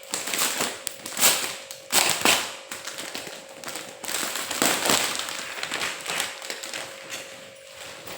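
Irregular bursts of crackling, rustling noise, loudest about a second in, at two seconds and near five seconds.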